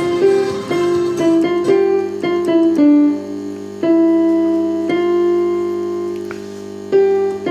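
Keyboard music: a melody of notes struck one after another, then a long held chord from about four seconds in, with a fresh note struck near the end.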